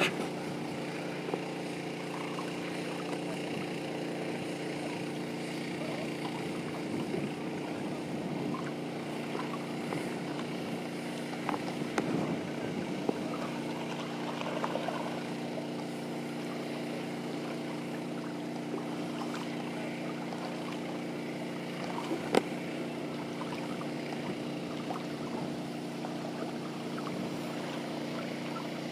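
Steady hum of a motor running at constant speed, with a few brief splashes from a dog wading in shallow water.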